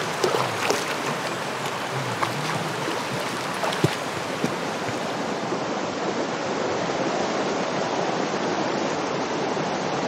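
Mountain stream rushing over rocks: a steady hiss of running water, with a few brief clicks in the first four seconds.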